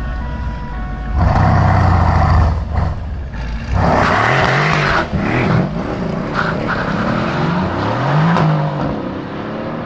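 Mercedes-Benz SL63 AMG's 5.5-litre twin-turbo V8 idling, revved hard for about a second, then launching with wheelspin and accelerating away. The engine note climbs and drops several times as it shifts up, then fades into the distance.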